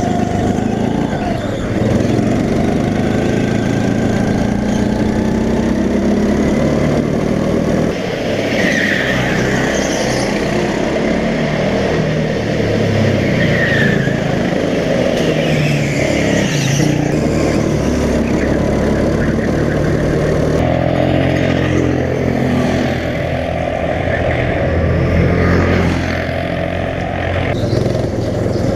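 Go-kart engines running hard, their pitch rising and falling as the karts accelerate and slow through the corners. A few short, high squeals come in the middle.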